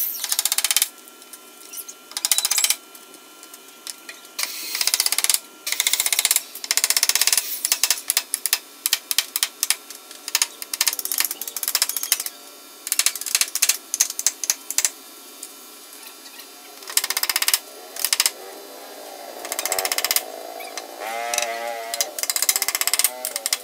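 Hammer blows on a plywood bookshelf, coming in quick runs of strikes with pauses between. A short wavering tone sounds near the end.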